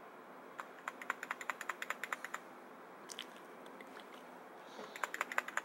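Delete key on a computer keyboard mashed rapidly, a fast run of key clicks for about two seconds, a few stray clicks, then another quick burst near the end. It is tapped repeatedly during boot to enter the BIOS setup.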